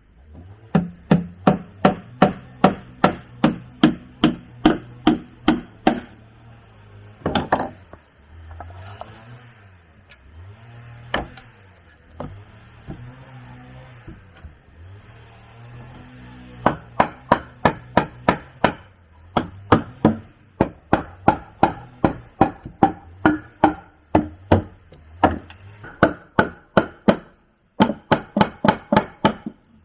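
Rapid, even blows of a hand tool on wood, about three to four strikes a second, in runs of several seconds. There is a long pause in the middle broken by one or two single knocks.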